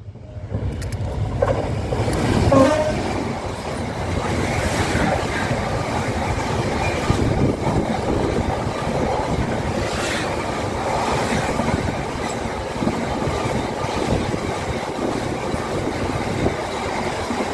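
Class 66 diesel freight locomotive and its wagons passing, a steady rumble and rattle of wheels on the rails, with a short horn sound about two seconds in and a single clank near the middle.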